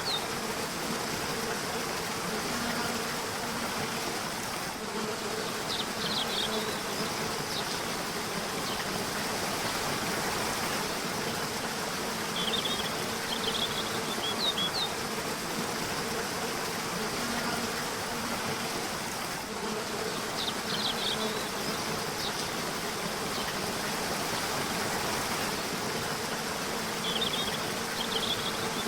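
A river runs with a steady rush of water, under a steady low hum. Short runs of high bird chirps come back about every seven seconds.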